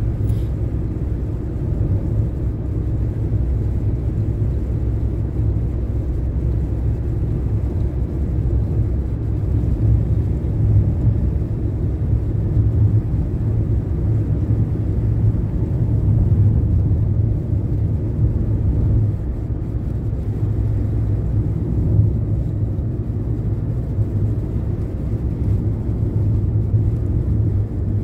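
Steady low rumble of road noise from a car driving at highway speed on a snow-covered road, heard from inside the cabin.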